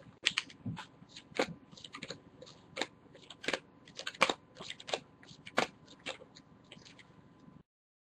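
Baseball trading cards being handled and flipped through one by one: a run of sharp, irregular clicks and snaps, several a second, that cuts off suddenly near the end.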